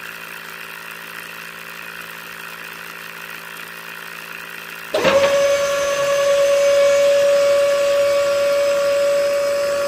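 Small DC motors of a homemade toy borewell rig running: a steady low hum, then about five seconds in a much louder, higher steady whine starts as the geared motor of the winch turns its cord spool.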